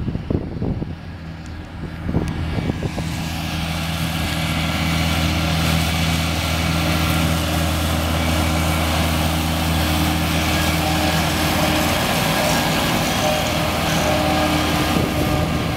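Wind buffeting the microphone for the first couple of seconds, then a New Holland 8340 tractor's diesel engine running steadily under load together with the whir of its spinning disc mowers cutting grass. It grows louder over a couple of seconds and then holds steady.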